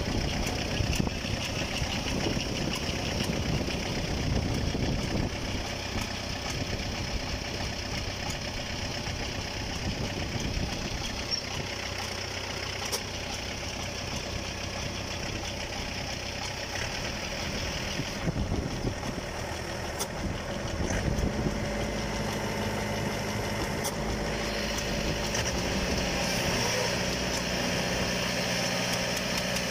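Diesel engine of a farm machine running steadily, its note shifting a little partway through.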